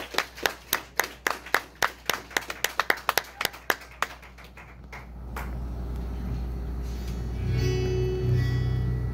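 Sparse hand clapping, about four or five claps a second, that stops about five seconds in. A steady low rumble follows, then a few acoustic guitar notes strummed briefly near the end.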